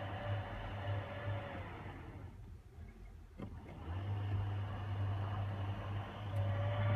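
Electric motor of a powered tailgate running with a steady hum, stopping about two seconds in, a single click, then running again from about four seconds. No squeak or rattle comes from the parcel shelf, whose contact areas have been treated with a dry-film antifriction coating.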